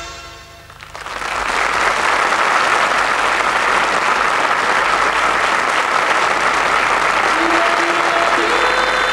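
Theatre audience applauding. The clapping swells in about a second in, as the last held chord of the band dies away, then holds steady.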